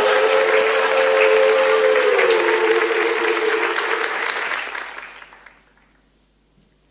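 Studio audience applauding over a short musical sting of two held notes that step down in pitch about two seconds in; both fade out about five seconds in.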